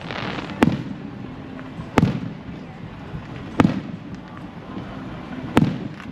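Fireworks going off: four sharp bangs, about one and a half to two seconds apart, each with a short echoing tail.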